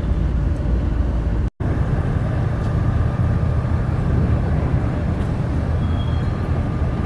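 Ferrari 360 Spider's V8 idling steadily, with no revving, broken by a brief dropout about one and a half seconds in.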